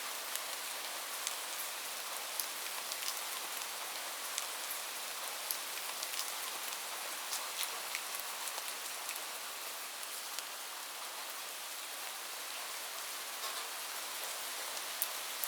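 Steady rain falling, an even hiss with many scattered sharper drop impacts.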